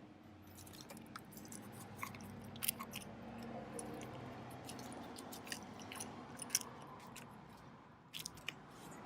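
Hands-on handling noises: scattered sharp clicks, small rattles and rustling, with a faint low hum through the first half.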